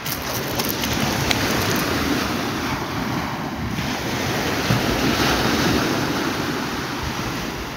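Steady rush of wind buffeting the microphone, mixed with surf washing on the beach.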